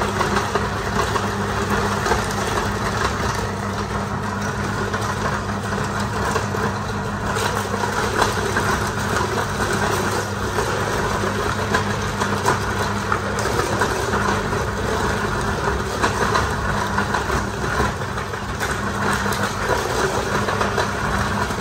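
Cast-iron size-32 twin-belt electric meat grinder crushing fish heads and bones: a steady motor hum under continuous dense crunching and crackling as the bones are forced through the plate.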